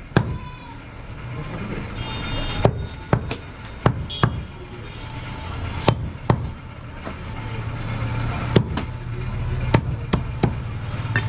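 A large butcher's knife chopping through goat meat and bone onto a round wooden chopping block: about ten sharp chops at uneven spacing, in small groups with pauses between them.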